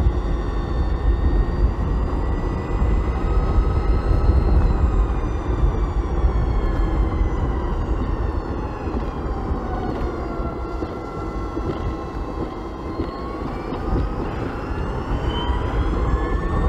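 BMW CE 04 electric scooter's motor whining under way, over a heavy rumble of wind on the microphone. The whine falls in pitch through the middle as the scooter slows, then climbs again over the last few seconds as it speeds up.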